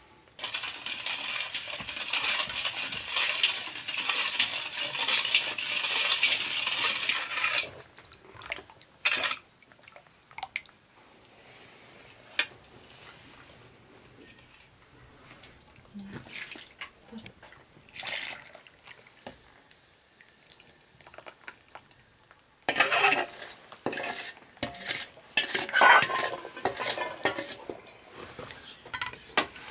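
A metal spoon stirring and scraping a thin liquid in a stainless steel bowl, with the spoon clinking against the bowl's sides. The first seven seconds or so are steady, dense scraping. Scattered single clinks follow, and a second run of clinking and stirring comes near the end.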